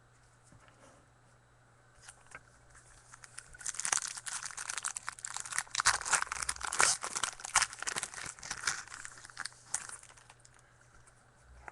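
Trading-card pack wrapper crinkling and tearing as it is handled and opened: a dense crackly rustle that starts a few seconds in, peaks, and dies away near the end.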